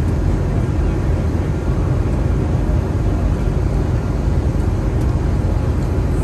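Steady cabin noise inside an Airbus A321 on approach: jet engine and airflow noise heard from a window seat beside the wing, mostly a deep, even rumble.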